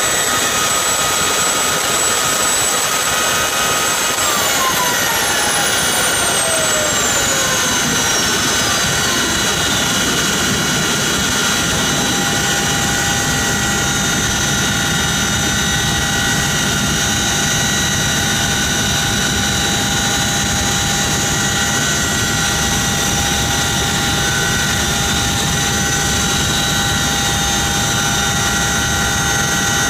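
CH-47 Chinook's twin turbine engines running on the ground, a loud steady high-pitched whine heard from inside the open cabin. About four seconds in, one whine falls steadily in pitch over several seconds while a low rumble builds underneath.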